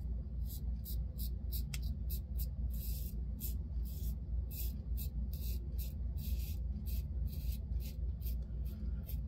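Timeless 0.68 titanium double-edge safety razor with a PermaSharp blade scraping through lathered stubble in short strokes, a crisp rasp with each stroke, about two to three a second.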